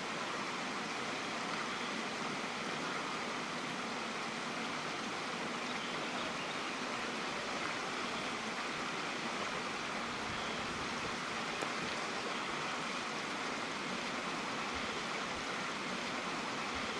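Steady rush of flowing water from a mountain stream or cascade, an even hiss that does not change.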